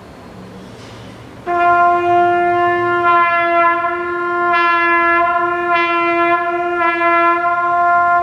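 Trumpet playing one long held note, starting about a second and a half in and sustained steadily to the end, its tone brightening briefly a few times.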